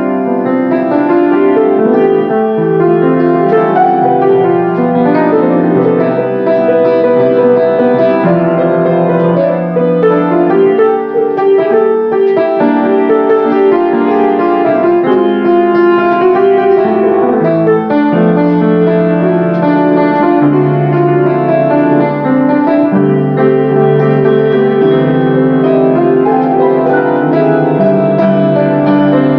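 Grand piano played solo, with several notes sounding together and held so they ring on.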